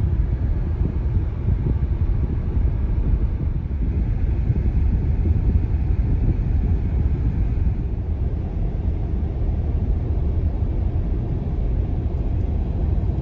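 Steady low road and tyre noise mixed with wind, heard inside the cabin of a Tesla Model Y cruising uphill at highway speed; the car is electric, so no engine is heard.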